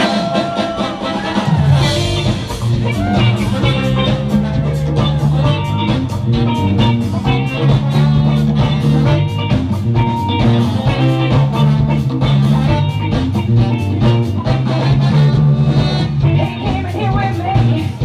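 Band music with guitar and singing over a steady beat; a heavy bass line comes in about a second and a half in.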